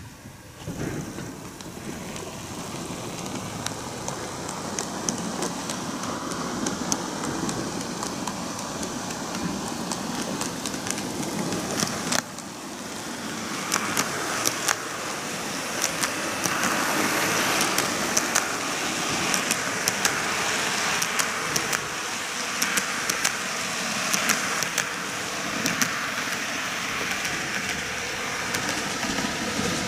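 N-gauge model trains running on TOMIX canted track: a steady rolling and motor hum that starts about a second in and grows louder. From about halfway through, wheels click over the rail joints again and again.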